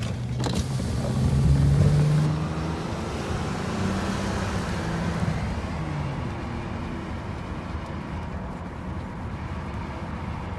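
Engine and road noise inside a moving car's cabin: a steady tyre rumble with the engine's low hum, loudest about two seconds in.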